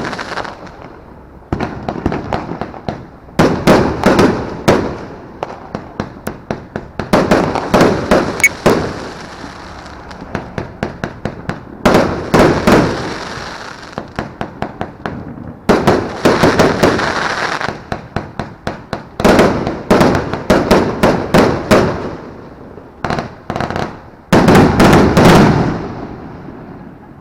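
Consumer fireworks going off: about six clusters of rapid, sharp crackling pops, each lasting one to two seconds, over a continuous hissing spray.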